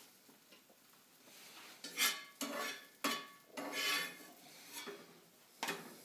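Kitchen utensils clattering and scraping against a plate and a cast-iron skillet in a string of sharp clinks starting about two seconds in, the loudest first.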